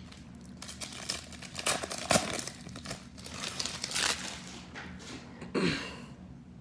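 Crinkling and tearing of a trading card pack's wrapper as the pack is opened by hand, in irregular crackles with a few louder rips.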